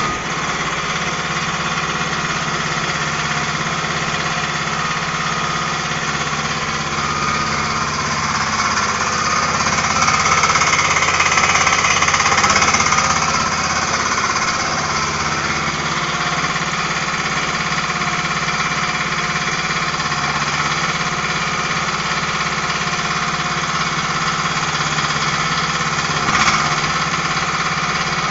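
Small diesel engine of a one-ton mini excavator running steadily. It grows louder for a few seconds about ten seconds in, then settles back.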